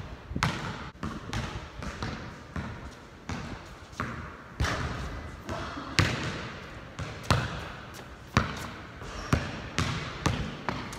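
Basketball being dribbled on a hard outdoor court, bouncing in a steady rhythm about every two-thirds of a second, each bounce echoing under the metal roof.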